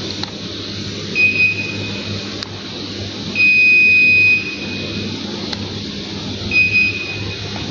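Three electronic beeps over a steady running hum and rush of air: a short beep about a second in, a longer beep of about a second in the middle, and another short beep near the end.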